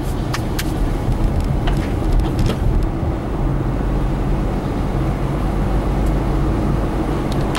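Steady low engine and road rumble of a car driving slowly on a wet road, heard from inside the cabin. There are a few sharp clicks in the first two and a half seconds.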